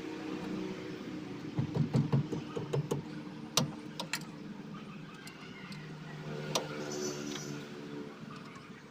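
Wrench working the axle-retaining nuts behind the rear brake backing plate of a Multicab: a quick run of metal clicks and taps about two seconds in, then a few single sharp clinks. A low steady hum sits underneath, strongest near the end.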